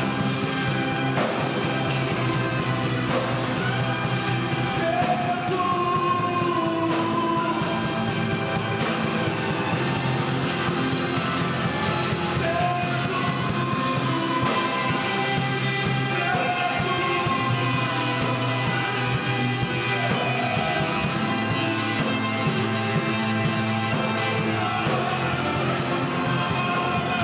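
A praise band playing a rock-style worship song, with a singer's melody over a steady drum beat.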